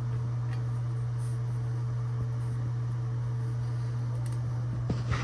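Steady low hum, with a couple of light knocks near the end.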